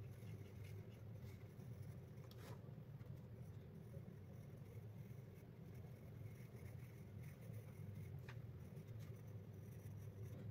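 Pencil strokes scratching faintly on paper over a low steady hum, with a soft click twice.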